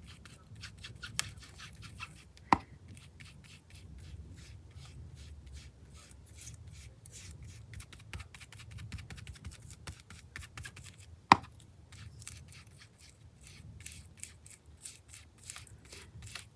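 Ink being applied through a line stencil onto paper: a quick, steady run of light dabbing and rubbing strokes, with a sharper knock a couple of seconds in and another past the middle.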